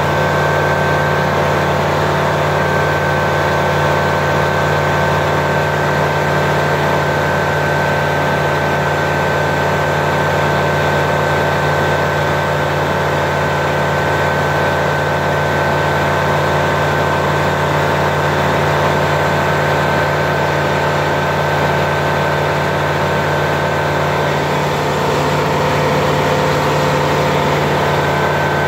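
Steady cockpit drone of a Flight Design CTLS light aircraft in level flight: its Rotax 912 engine and propeller running at constant power, with a steady high whine above the engine note.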